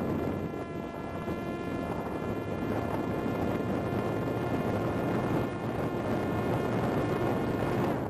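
Parrot Disco fixed-wing drone's electric pusher motor and propeller running at a steady high-pitched whine under high throttle, with wind rushing past. The whine cuts off abruptly near the end.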